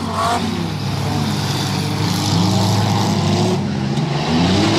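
Several stock street cars' engines revving hard together as a pack pulls away at a green-flag race start, their pitches overlapping and rising and falling as they accelerate.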